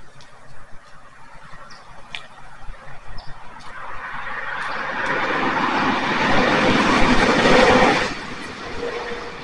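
A pickup truck driving past on the road, its tyre and engine noise building over several seconds and then dropping off abruptly about eight seconds in.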